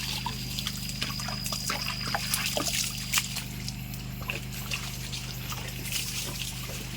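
Liquid trickling and splashing, with scattered small clicks, over a steady low electrical hum.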